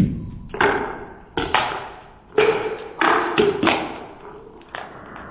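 A scattered series of about nine sharp knocks and pings, each dying away quickly: pieces thrown out by a table firework landing on the board, the tubes and the paving between blasts.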